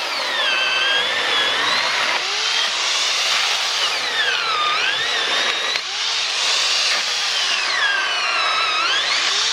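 Corded Black & Decker Alligator Lopper electric chainsaw running and cutting through dry firewood branches. Its motor whine sinks in pitch and recovers three times as the chain bites into the wood and frees up again.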